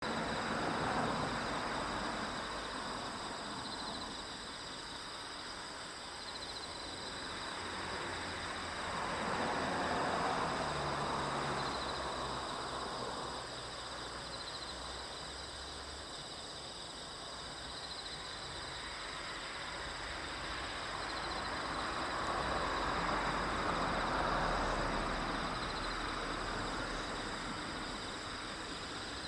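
Insects chirping steadily on a summer night, mixed with the sound of a train approaching. The train's noise swells and fades several times, and a low hum joins it in the second half.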